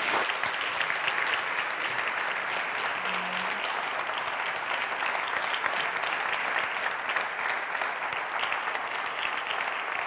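Audience applauding: many hands clapping steadily and densely, starting at once and holding an even level throughout.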